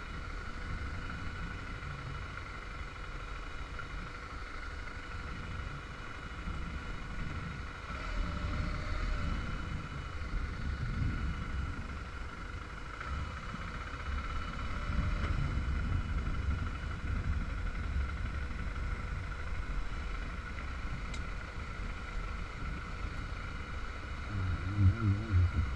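Motorcycle on the move: a steady engine drone with wind rumble on the rider's microphone.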